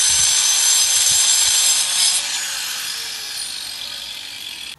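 Angle grinder with a diamond blade cutting into a riven concrete paving slab: a loud, gritty, high-pitched grinding over a steady whine, easing off a little about two seconds in.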